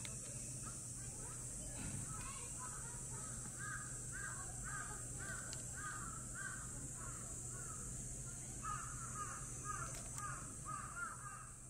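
A bird calling over and over in short arched calls, about two a second, thickest in the second half, over a steady high hiss.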